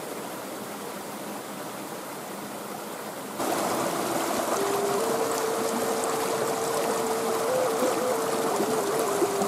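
Creek water running over rocks. About three seconds in, a wooden end-blown flute starts playing over it: a slow melody of long held notes that steps up twice, then holds with small turns and dips lower near the end.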